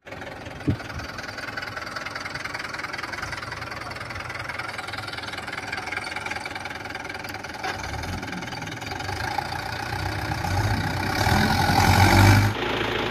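Mahindra tractor's diesel engine running steadily under load in mud, with a brief sharp noise about a second in. Over the last few seconds the engine revs harder and louder, then drops off suddenly near the end.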